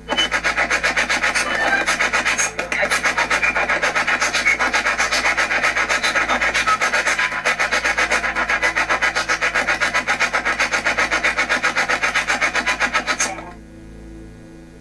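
Spirit box sweeping through radio stations: a loud, choppy stream of static and broken radio fragments, pulsing several times a second, which cuts off near the end.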